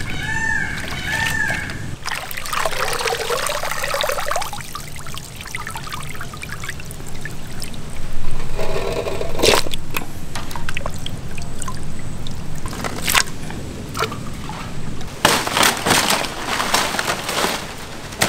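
Water being poured and splashed as pieces of squid are washed in a vessel, with trickling and a few sharp knocks and clatters, most of them near the end.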